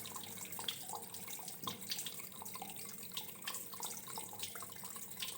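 Water trickling quietly, with many small drips and plinks at irregular moments.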